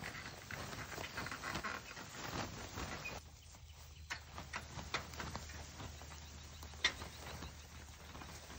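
A chicken tractor being hauled through tall grass on a panel dolly: grass rustling and swishing, with irregular clicks, knocks and rattles from the frame and dolly. There is a brief lull a little after three seconds and one sharper click near the end.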